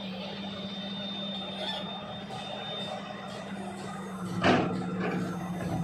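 JCB tracked excavator's diesel engine running steadily as the machine loads itself onto a flatbed trailer, with one loud clank about four and a half seconds in.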